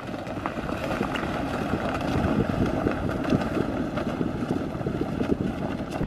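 A plastic ice-fishing sled dragged over snow-covered lake ice, along with footsteps crunching on the snow: a steady scraping, crunching noise that grows louder over the first couple of seconds and then holds.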